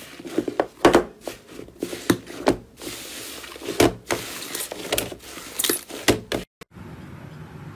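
Thick slime being squeezed and kneaded by hand in a metal tray: irregular sticky pops and clicks, several a second. The sound cuts out briefly near the end.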